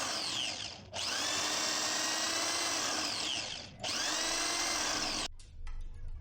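Top-load washing machine motor whirring at high speed in runs of about three seconds. Its whine falls briefly twice and picks straight back up, then it stops about five seconds in, leaving a few faint clicks.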